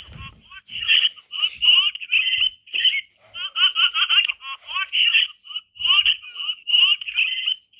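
A sped-up, high-pitched voice giving rapid, short squeaky bursts like laughter, each with quick rising and falling pitch glides.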